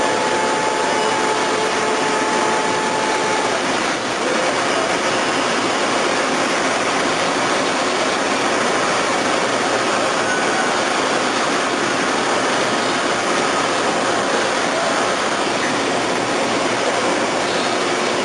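Double-column CNC milling centre running: a steady, even machine hiss, with a faint whine that stops after about three seconds.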